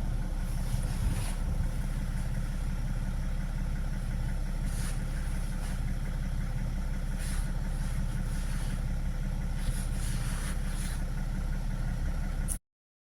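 BMW F02 7 Series engine idling steadily, a low even hum, with a few brief hissy rushes over it.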